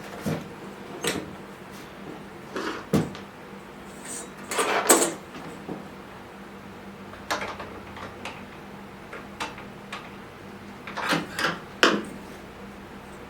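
Irregular knocks, clicks and clatter of objects being handled, with a longer scraping rustle about five seconds in, over a steady low hum.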